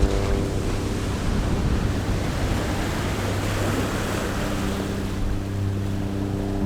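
Ocean waves washing ashore: a rush of surf that swells about two to four seconds in and then falls back, over soft background music.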